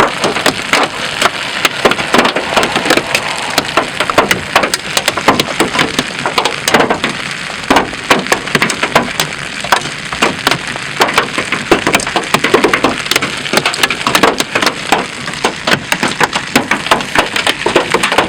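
Tennis-ball-sized hail hitting a vehicle: a dense, irregular stream of hard knocks, many a second, over a steady hiss of rain.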